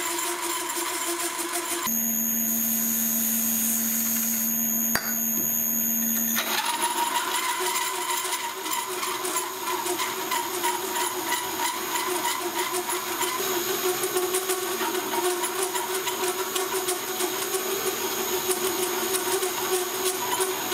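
Makita hole saw turning in a milling machine spindle and cutting through a steel plate: steady machine hum with the grinding of the saw teeth in the metal. About two seconds in the sound changes for a few seconds to a steadier hum with a high whine, then the cutting sound returns.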